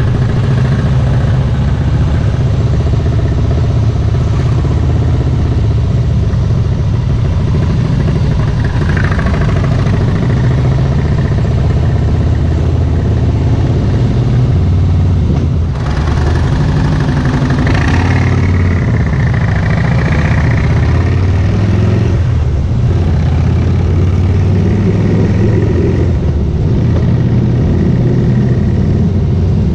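2016 Harley-Davidson Softail Slim's V-twin engine running under way, its note rising and falling with the throttle as the bike rides and picks up speed.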